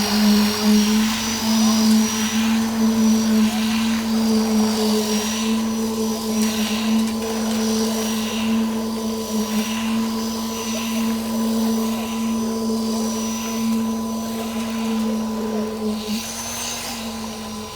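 Machine motor at a concrete roadworks running with a steady, unchanging high hum.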